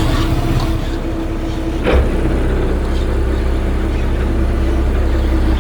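Boat engine running at a steady drone, with a single brief knock about two seconds in.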